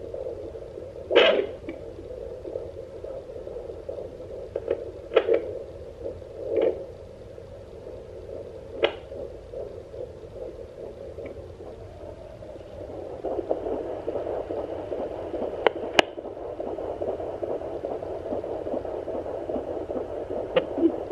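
Sonoline B fetal Doppler's speaker turned up loud: a steady whooshing hiss broken by several sharp scraping clicks as the gelled probe slides over the belly. About two-thirds of the way in, a louder, quicker-fluttering whoosh comes in, the baby's heartbeat, not as loud as usual because of the baby's position.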